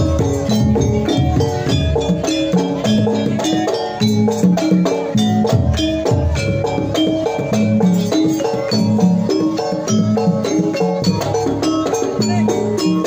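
Javanese gamelan ensemble playing jaranan dance music: struck metallophones and drums in a fast, busy, steady rhythm.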